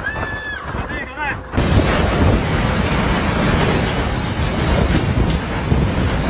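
Typhoon gale buffeting the microphone: loud, rumbling wind noise that cuts in abruptly about a second and a half in and carries on. Before it, a person's voice cries out briefly.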